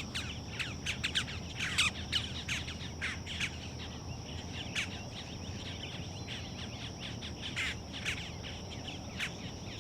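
Birds calling in quick, short, sharp chirps and chip notes, several a second, some sweeping downward. Under them runs a steady high-pitched insect drone.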